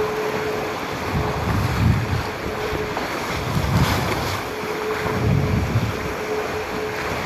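Wind buffeting the microphone and water rushing and splashing past the hulls of a sport catamaran sailing at full speed through choppy waves, with gusts rumbling low every second or so and a faint steady hum that comes and goes.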